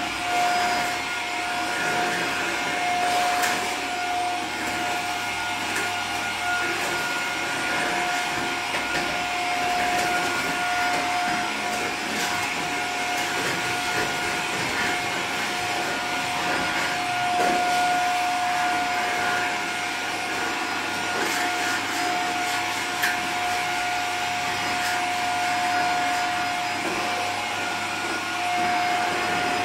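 Vacuum cleaner running steadily with a constant high whine while the dusty stairs are vacuumed, with occasional light knocks.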